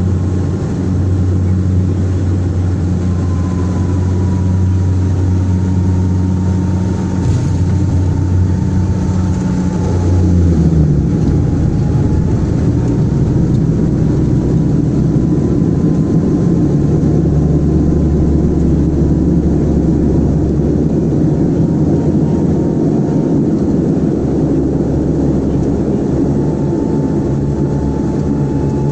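The twin General Electric CT7 turboprops of a Saab 340B running with a steady low propeller hum. About eleven seconds in the hum breaks and drops in pitch, and a louder, rougher engine and propeller sound takes over for the rest of the time.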